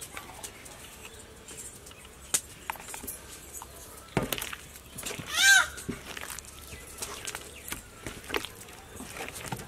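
A single short animal call, its pitch rising then falling, about halfway through, over scattered faint wet clicks of hands working a soft butter mixture.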